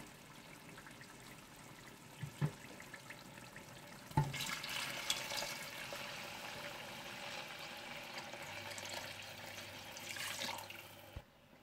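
Water being poured into a cooking pot, a steady pour lasting about seven seconds that begins just after a knock about four seconds in and stops abruptly near the end.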